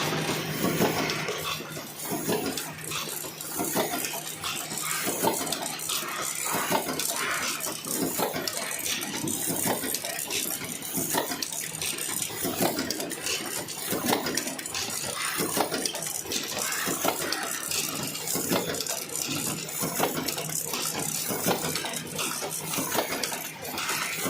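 Automatic carton-boxing machine running, with continuous clattering and knocking over a steady low hum.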